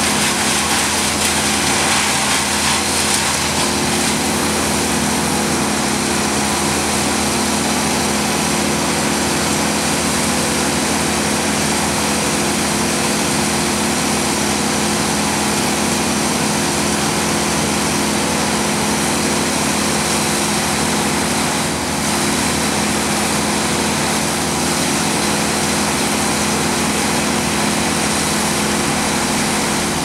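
An engine running steadily at a constant speed: an even drone with a strong hum and hiss above it, unchanging throughout.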